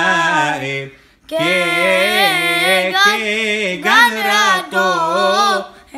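A boy singing a Hebrew liturgical hymn (piyyut) solo, drawing one syllable out in a long, ornamented melisma with a wavering pitch. He breaks off for a short breath about a second in, then goes on.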